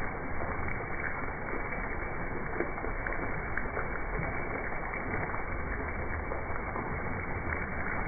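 Fountain water pouring from an elephant figure's trunk and splashing steadily into a stone basin, with a few faint ticks.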